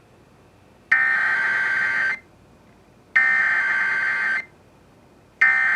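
Emergency Alert System SAME header: three identical bursts of buzzy digital data tones, each a little over a second long and about a second apart. The third starts near the end. This is the coded start of a new alert relay.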